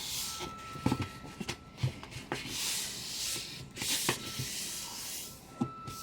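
A square sheet of paper being folded in half and the crease rubbed flat: rustling and rubbing with a few short taps.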